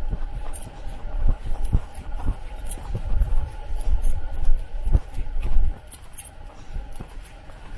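Footsteps on a trail at a steady walking pace, about two steps a second, with wind rumbling on the microphone.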